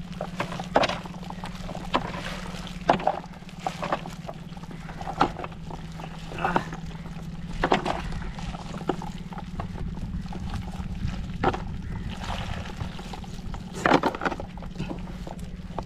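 A cast net being shaken out over a wet plastic tub: a large catch of small fish drops and flaps in the tub, with splashing, dripping water and scattered knocks against the tub. A steady low hum runs underneath.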